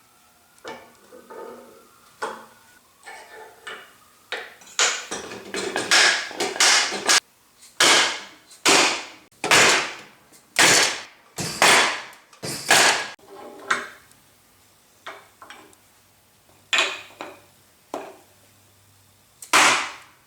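Repeated hammer blows driving a new bearing onto the planer cutter head spindle. The bearing is going on slowly. There is a run of about ten heavy, ringing blows roughly one a second, with lighter knocks before and after.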